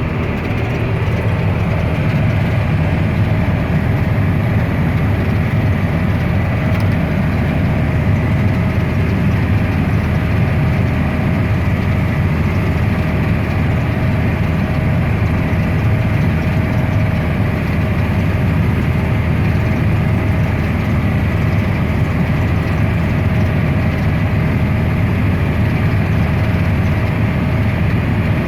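Grain-cart tractor engine running steadily: a deep, even rumble with a faint constant whine above it.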